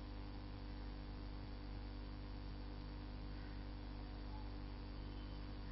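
Steady electrical mains hum with a faint hiss.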